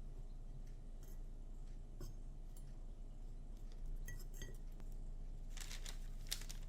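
Light clinks and taps of kitchenware. A few scattered taps, two short ringing clinks about four seconds in, then a quick cluster of clatter near the end, over a steady low hum.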